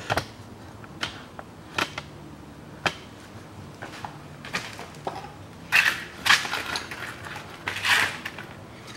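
Hand tools tightening the guide bolts of a Volkswagen Passat B6's front brake caliper: scattered sharp metallic clicks about a second apart, then a few louder, short scraping bursts after the middle.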